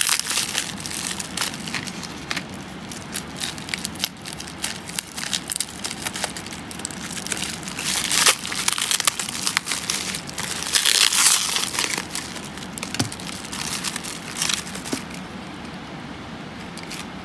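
Plastic bubble wrap crinkling and crackling as hands unwrap it and cut it open with scissors, with louder bursts about eight and eleven seconds in. It quietens near the end.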